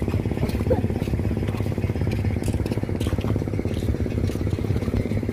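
A small engine running steadily at an even speed, a rapid low pulsing with a few faint clicks over it.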